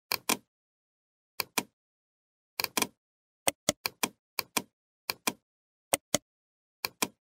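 Computer mouse button clicking, about nine clicks spread irregularly over several seconds, each heard as a sharp press and release.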